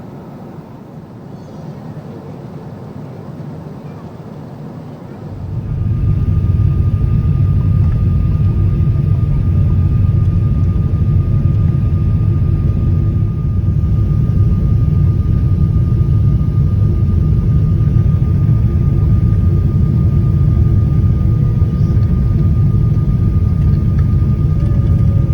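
Airliner engine noise: a steady low rumble that jumps sharply louder about five seconds in and then holds, with a faint steady whine above it.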